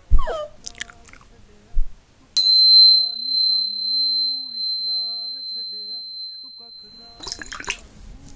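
A single high-pitched bell ding, struck about two seconds in and ringing out slowly for several seconds.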